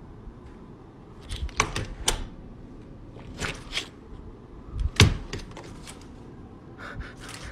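A few short clusters of sharp clicks and knocks, the loudest about five seconds in with a dull thump.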